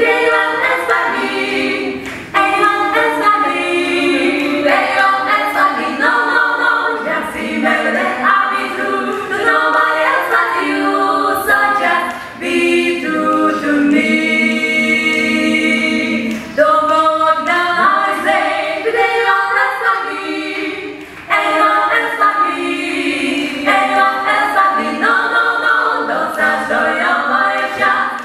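A women's vocal ensemble of five singing a cappella in close harmony, with no instruments, in phrases broken by short breaths.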